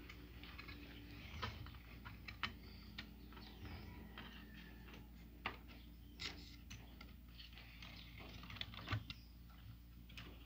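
Scattered light clicks and taps of a CRT TV circuit board being handled and turned over for inspection, over a low steady hum.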